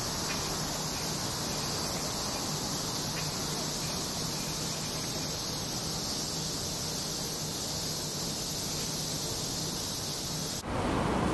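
Steady high-pitched insect chorus with a low hum underneath. About ten seconds in it cuts abruptly to louder steady traffic noise.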